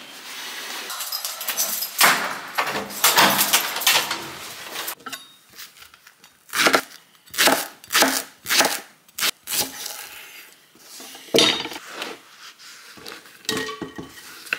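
A kitchen knife slices a leek on a bamboo cutting board. A dense run of cutting noise fills the first few seconds, then comes a series of separate, irregular knocks as the blade goes through the leek onto the wood, with a short pause about two-thirds of the way in.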